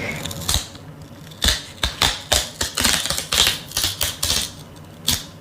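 Close-miked paper packaging being handled and opened: an irregular run of sharp, crisp clicks and crinkles.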